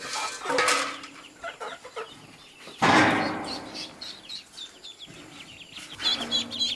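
A flock of ducklings peeping in rapid, high chirps that grow thickest near the end, with a loud rustling burst about three seconds in.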